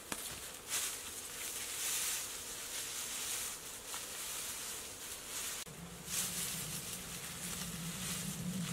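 Dry grass thatch rustling as it is handled and pulled on a hut roof, with scattered light knocks and clicks. A low steady hum sets in about six seconds in.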